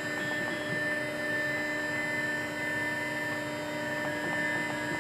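Laguna IQ CNC router's spindle running at speed: a steady, even whine with several constant tones.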